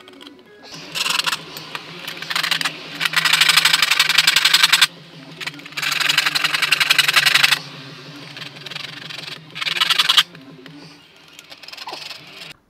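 Small hand ratchet clicking rapidly in five bursts of up to two seconds each as it turns a screw in the centre of an LED ceiling lamp's base plate, with a faint steady hum underneath.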